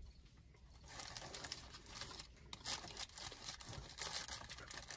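Quiet eating sounds: chewing fast food, with soft, irregular crinkling and clicking of paper food packaging starting about a second in.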